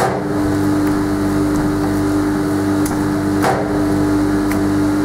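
Steady machine hum with a strong low droning tone, and a single short knock about three and a half seconds in.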